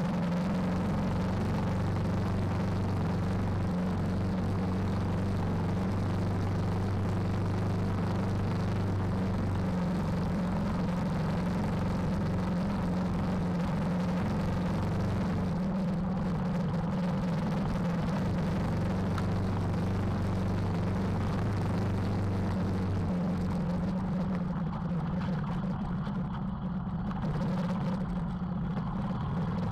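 KTM 390 Adventure's single-cylinder engine running steadily while the bike rides along a dirt track, a steady drone that eases off and gets a little quieter in the last few seconds.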